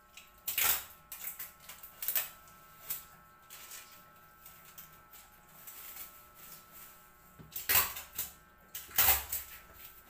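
Scattered handling noises: a few short, sharp rustles and knocks, the loudest two near the end, over a faint steady hum.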